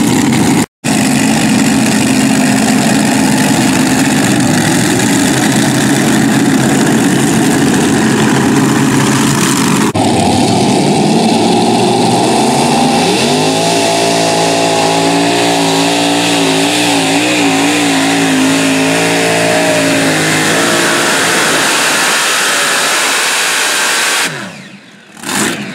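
Super modified pulling tractors' supercharged engines running loud. First comes a rough, steady engine noise. About ten seconds in the sound changes abruptly to a multi-engine tractor whose steady pitched note climbs and then wavers as the throttle is blipped, and the sound drops away briefly near the end.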